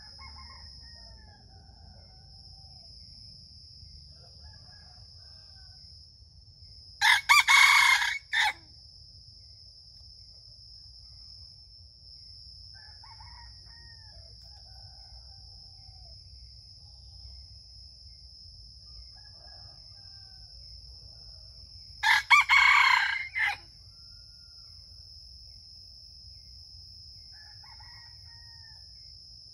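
Junglefowl rooster crowing twice, about fifteen seconds apart. Each is a short, clipped crow of about a second and a half. Faint bird calls come and go in between, over a steady high-pitched drone.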